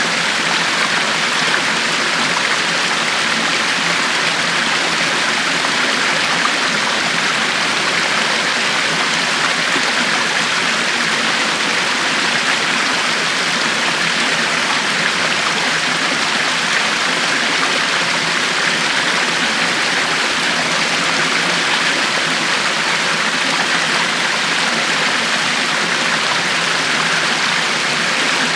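A river flowing steadily over rocks: a constant rushing of water with no breaks or single splashes.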